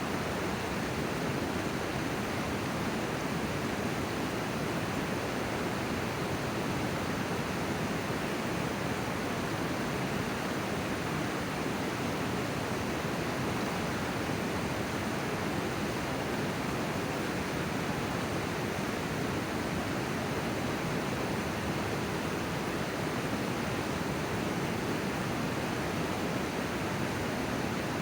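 River water rushing past in a steady, unbroken stream.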